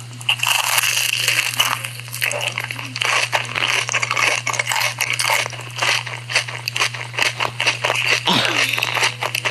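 Close-miked ASMR eating sounds: a dense run of crisp crunching and chewing crackles from bites of fried corn dogs and noodles, over a steady low hum.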